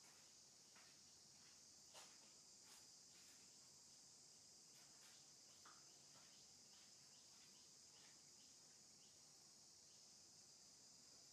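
Near silence: faint, steady high-pitched insect chirring in the background, with a few faint clicks, the clearest about two seconds in.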